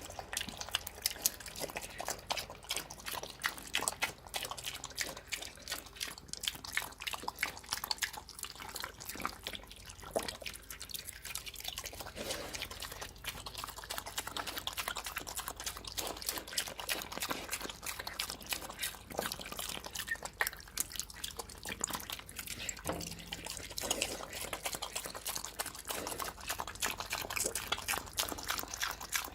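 A pig eating wet slop: continuous wet smacking and chewing, a dense run of small clicks with no pauses.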